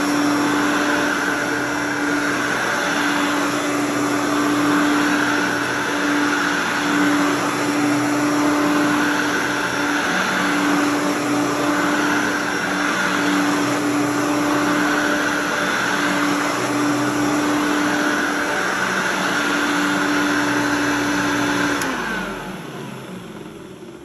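1983/84 Hoover Sovereign single-speed upright vacuum cleaner running on carpet, its steady motor hum swelling every few seconds as it is pushed back and forth; the brush roll sounds a little rough. Near the end it is switched off and the motor and brush wind down.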